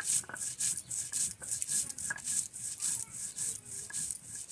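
Rhythmic rasping, scraping strokes, about two a second, like something being scraped or rubbed by hand.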